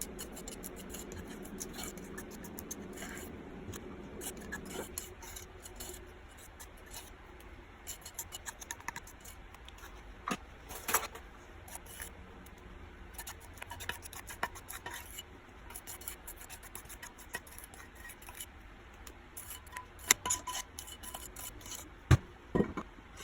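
Spatula scraping thick brownie batter out of a bowl and spreading it in a baking pan: intermittent scrapes and light clicks, with a few sharper knocks near the middle and near the end. A low steady hum stops about five seconds in.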